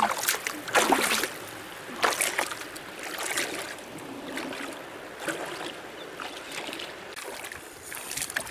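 Water splashing in irregular bursts, roughly a second or two apart, over a steady watery hiss.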